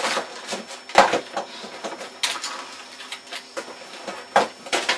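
Irregular clattering taps and knocks on a computer keyboard and desk, with a sharp strike about a second in and several more spread through.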